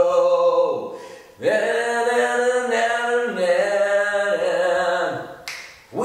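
A man singing unaccompanied, holding long drawn-out notes that step up and down in pitch, with a breath between phrases about a second in and again near the end.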